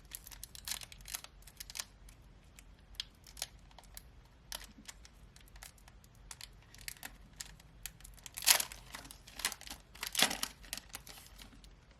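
Trading card booster pack foil wrapper crinkling and cards being handled: a run of small crackles and rustles, with two louder crinkles about eight and a half and ten seconds in.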